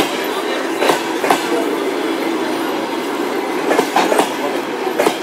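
Passenger train coaches rolling past at departure speed: a steady rumble of wheels on rail, with sharp clacks in pairs as the bogie wheels cross rail joints, once about a second in and again several times near the end.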